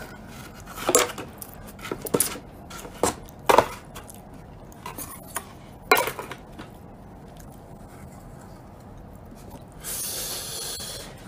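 Plastic fork clicking and scraping against takeaway food containers: several separate knocks and scrapes, then a short rustle near the end.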